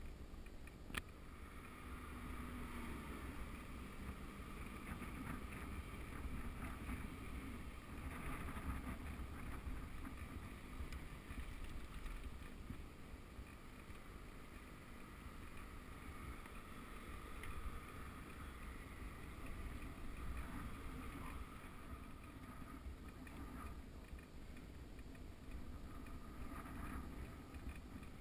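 Steady rush of wind buffeting the microphone of a bicycle-mounted camera, with rolling road noise from the moving road bike. There is a single sharp click about a second in.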